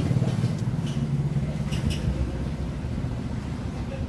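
A low, steady engine-like rumble, with a few faint clicks in the first two seconds.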